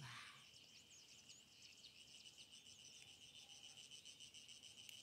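Faint, steady, high-pitched insect trill, likely crickets, with a few faint high chirps in the first second and a half and a brief rustle right at the start.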